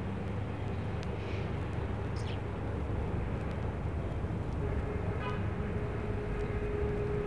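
Steady low rumble of background ambience. A few faint high chirps come in the first seconds, and a thin steady tone joins about two-thirds of the way through.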